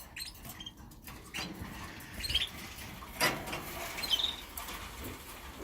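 A few short, high canary chirps among light rustling and tapping of birds moving about in their cages.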